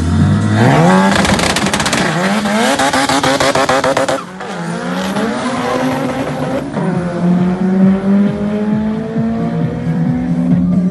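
Turbocharged 1.3-litre Honda D13B2 four-cylinder engine at full throttle on a drag-strip run, revving up hard from about half a second in and climbing through the gears. There is a brief drop at about four seconds, then a slower, steady climb in pitch in a higher gear.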